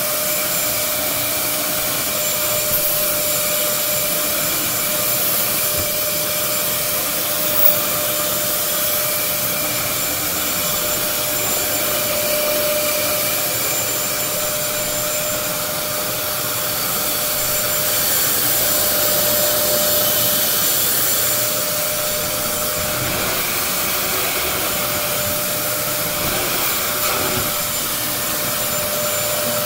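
An upright floor-cleaning machine's suction motor runs steadily over carpet, with a constant whine under the airflow noise.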